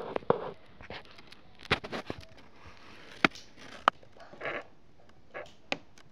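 Small plastic LEGO pieces clicking and snapping together by hand: a run of irregular sharp clicks, with a couple of short rustles.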